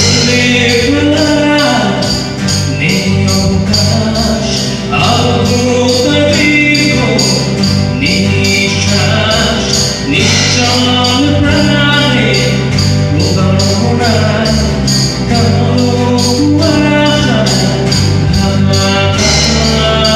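A small band playing a song live: strummed acoustic guitars over bass guitar and a drum kit, with a steady, quick high percussive beat.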